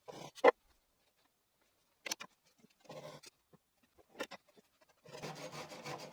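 Wooden dowels being fitted into screw holes in pine: a sharp knock about half a second in, a few short scraping strokes, then a longer rasping stretch of wood rubbing on wood near the end.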